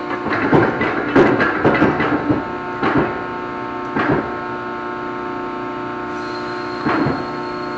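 Steel pieces clanking and knocking, a quick run of knocks then single ones about three, four and seven seconds in, over the steady hum of running shop machinery.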